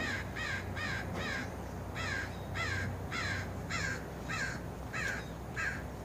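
A bird calling over and over: about a dozen short calls, each falling in pitch, two or three a second, with a brief pause about a second in.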